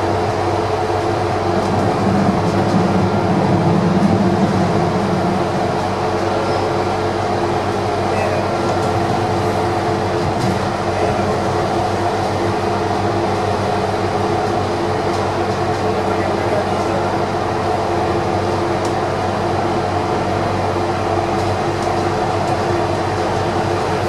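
Rome Metro Line C train running at speed, heard from inside at the front of the car: a steady rumble of wheels on rail with a continuous hum of several steady tones from the drive, swelling slightly a few seconds in.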